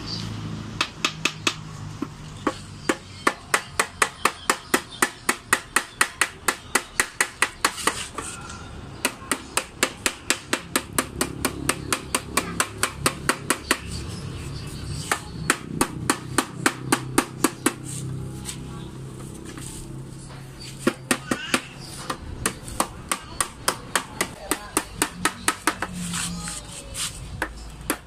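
Small hammer tapping along the seam where a brass tank meets a car radiator's header plate, bending the header tabs over to crimp the tank in place. The metallic taps come in quick runs of about three to four a second, with short pauses between runs.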